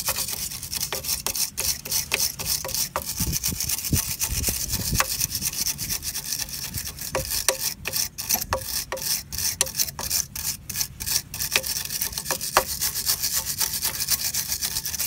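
Quick back-and-forth scrubbing on the rusty threaded stud of an anti-roll bar link, cleaning the threads: a fast, uneven rasping with occasional sharp clicks.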